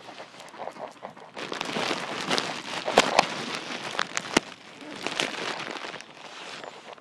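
Footsteps and rustling through dry leaf litter and bush branches, a crackling noise that grows louder about a second and a half in, with a few sharp snaps in the middle.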